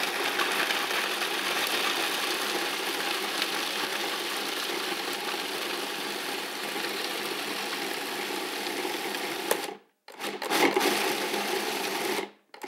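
Food processor running, its blade grinding soaked almonds, sunflower seeds, walnuts and raisins into a coarse granola. It runs steadily for about ten seconds, cuts off suddenly, then runs again for about two more seconds near the end.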